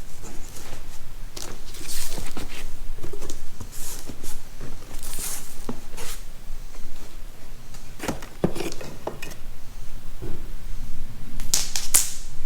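Irregular knocks, clicks, scrapes and rustles of objects being handled, with a louder scraping rustle about two seconds, five seconds and eleven seconds in.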